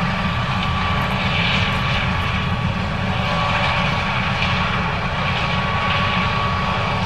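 John Deere S770 combine harvester running steadily while harvesting corn: a low rumble under a steady high whine.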